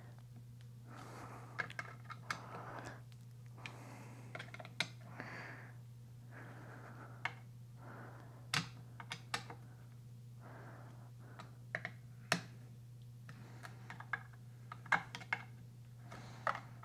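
Scattered light clicks, taps and scrapes of a hand screwdriver and metal parts as the screws of a Kirby Generation 3 vacuum motor are snugged up by hand and the motor is handled, over a faint steady low hum.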